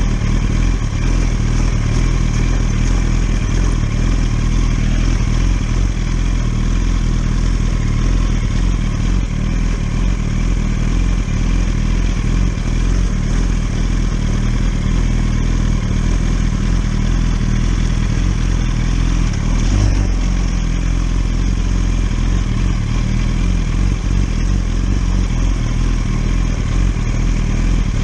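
Inline-four 1000cc sport motorcycle engine running at a steady, nearly unchanging speed while riding.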